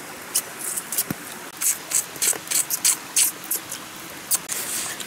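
Close-up eating sounds: about a dozen short, sharp slurps, sucks and crunches as small morsels are bitten and picked clean by hand.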